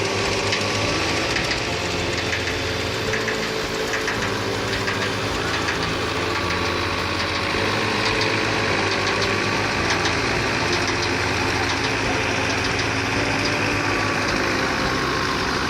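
Engine-driven wheat threshing machine running steadily: a low engine chug under a broad, even rattling whoosh, with small clicks here and there.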